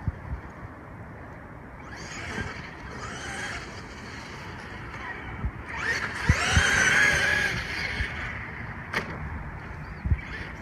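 Traxxas X-Maxx RC monster truck driving, its motor and drivetrain whining up and down in pitch as it speeds up and slows. It is loudest about six to seven seconds in, with a few sharp knocks along the way.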